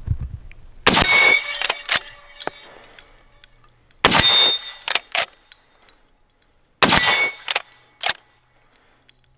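Three shots from a Swiss K31 straight-pull rifle in 7.5x55mm Swiss, about three seconds apart. After each shot come a couple of sharp metallic clacks as the straight-pull bolt is pulled back and pushed forward to reload.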